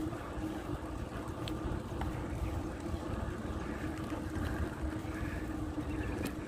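Low wind and road rumble from a bicycle ride, with a steady hum throughout.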